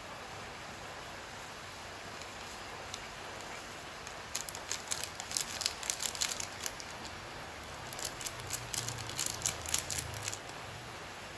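Two bursts of rapid light crackling and rustling, the first about four seconds in and the second about eight seconds in, over a steady soft hiss.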